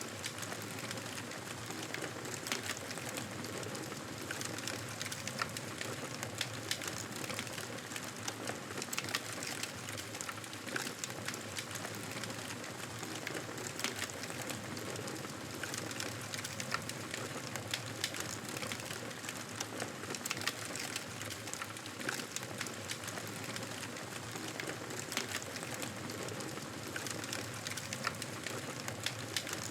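Wood fire crackling in a fireplace: a steady soft hiss with frequent irregular sharp pops and snaps.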